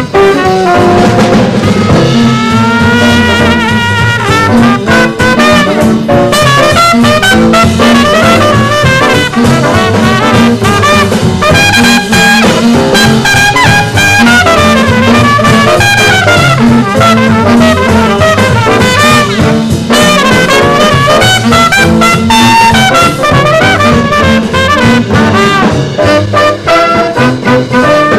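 Small swing jazz combo of trumpet, tenor saxophone, guitar, bass, piano and drums playing a blues, with a horn carrying the lead line over a steady bass line and drums.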